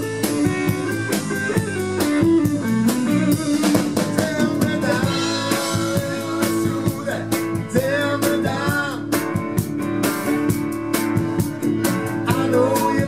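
Live blues-rock band playing: electric guitar over bass guitar and a drum kit.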